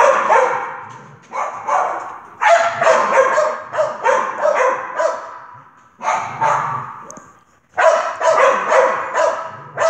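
A dog barking repeatedly in rapid runs, about two to three sharp barks a second, with a brief pause near the end. The barks echo off the hard walls of a large hall.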